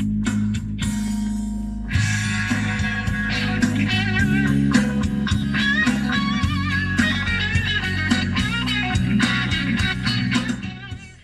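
Guitar music playing from the car's head-unit music player through the cabin speakers, turned down near the end as the volume is lowered.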